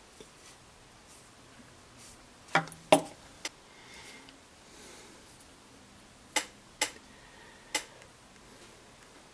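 Sharp clicks and taps of hard objects being handled on a wooden sculpting stand, three in quick succession and then three more a few seconds later, over a quiet room.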